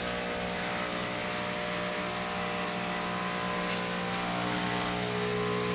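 Water pump of a Techno-Gaz Andromeda tabletop autoclave running steadily with an electric hum as it fills the autoclave's water tank.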